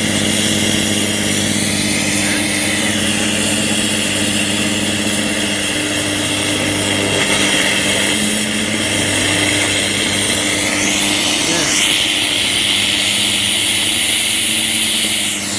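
Plasma cutter running, a steady harsh hiss over a constant electrical hum, with a high whine that steps up in pitch about eleven seconds in.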